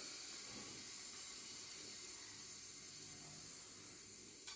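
Quiet room tone: a faint steady hiss, with one soft click near the end.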